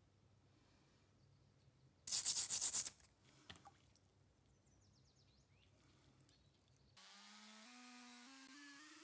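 A stiff brush scrubbing rusty steel screwdriver parts in a tray of liquid: one short run of quick strokes, under a second long, about two seconds in. About seven seconds in, a small rotary tool with a disc starts up, its whine climbing in pitch in steps.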